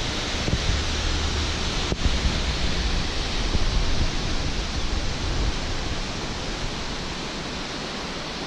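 Bear Creek Falls waterfall rushing steadily, an even hiss of falling water, with wind buffeting the microphone as a low rumble that eases off near the end.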